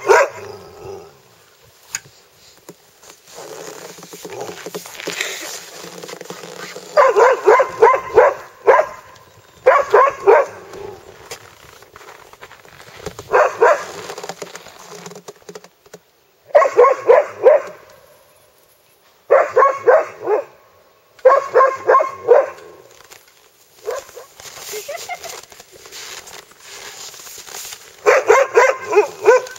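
Chained sled dogs barking in bursts of quick barks, about seven bursts with quieter gaps between them.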